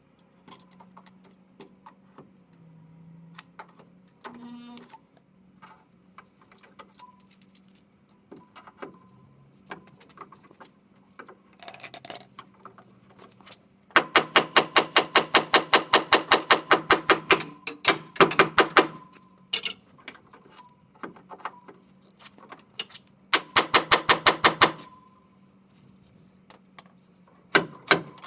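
Hand ratchet wrench clicking in two runs of rapid, even clicks, with scattered clinks of tools and metal parts between them.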